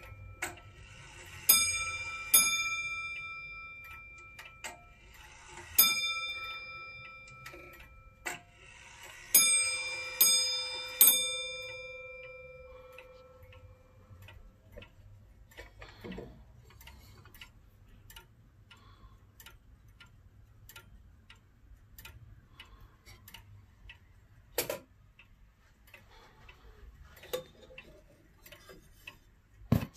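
1970s Hermle Comtoise-style wall clock striking its bell six times at uneven intervals in the first eleven seconds or so, each strike ringing out and dying away while the hands are turned by hand. After that the pendulum movement ticks steadily, with a couple of sharper clicks later on.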